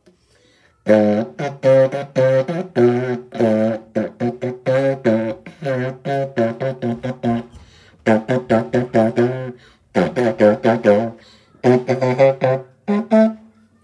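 Saxophone blown through a length of grey plastic pipe fitted to its neck, playing a run of low, short notes in quick phrases with a few brief pauses.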